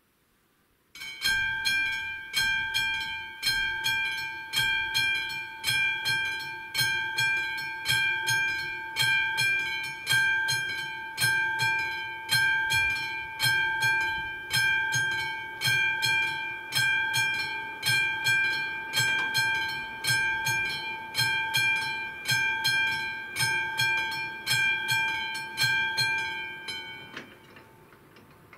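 Railway level crossing warning bell starting as the crossing activates and ringing evenly at about three strokes every two seconds, each stroke a bright multi-tone ring that decays before the next. It stops near the end.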